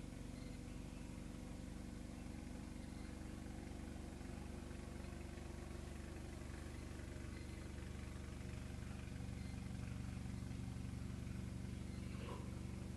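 Walk-behind gasoline snowblower's small engine running steadily while clearing snow, growing louder as it comes closer about nine seconds in.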